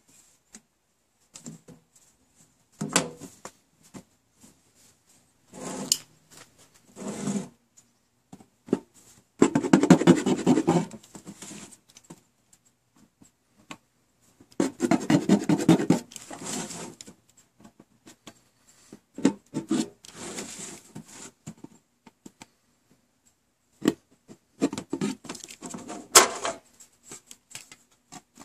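Knife blade cutting a flap through a thin metal popcorn-tin lid: rasping, scraping bursts, the two longest each a second or two, with shorter scrapes and knocks from handling the tin lid between them.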